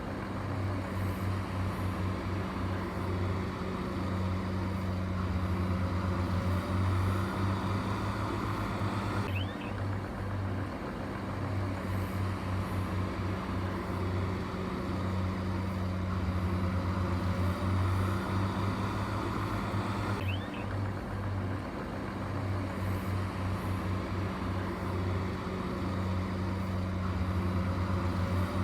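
Heavy construction machine's engine running steadily with a low hum, in a pattern that repeats about every eleven seconds.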